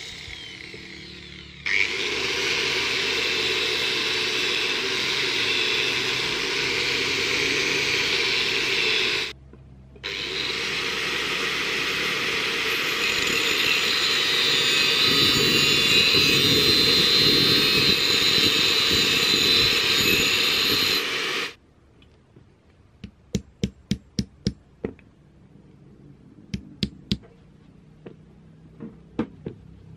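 Angle grinder with a cutting disc running under load as it cuts through a tube, in two long runs with a brief stop about nine seconds in. The grinder cuts off about twenty-one seconds in, and a series of sharp taps follows in quick groups.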